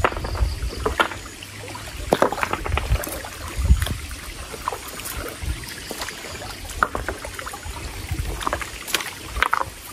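Hands splashing and sloshing in shallow stream water, with irregular knocks of stone on stone as rocks and waterweed are piled up to dam the stream.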